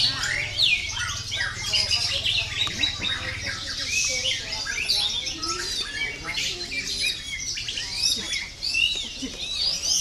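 White-rumped shama singing amid a dense chorus of other songbirds: rapid overlapping whistles, chirps and rattling phrases with no break.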